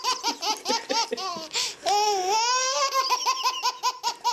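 A baby laughing hard: a rapid run of short, high-pitched laughs, with one longer squealing laugh about two seconds in.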